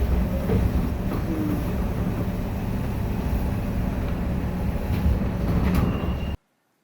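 Steady low rumble of a moving vehicle, cutting off abruptly about six seconds in.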